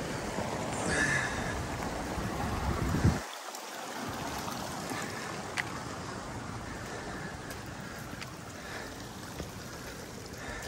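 Mountain creek water running, a steady rushing hiss, with wind rumbling on the microphone that cuts off suddenly about three seconds in. A few faint ticks sound over the hiss later on.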